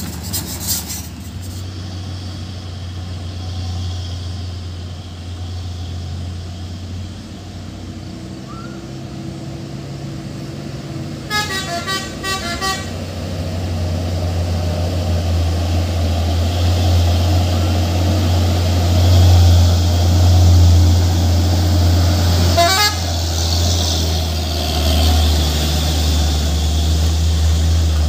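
Heavy truck engine running with a low, steady drone that grows louder through the second half as the truck approaches and passes close by. A vehicle horn sounds partway through as a short run of pulsing tones, and a brief pulsing horn sweep follows later.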